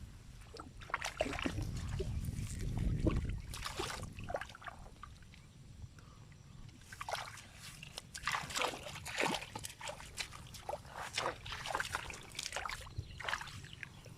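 Water splashing and sloshing in short, irregular bursts, thickest in the second half, with a low rumble in the first few seconds.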